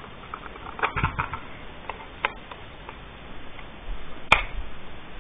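Polymer AR-15 magazine being pushed up into a Saiga rifle's modified magazine well: a cluster of clicks and knocks about a second in, another click a little after two seconds, and one sharp, loud click past four seconds. The magazine does not yet lock, and the catch still needs adjusting.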